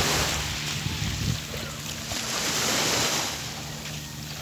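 Small waves breaking and washing up a sandy shore, surging loudest at the start and again around three seconds in, over a steady low hum.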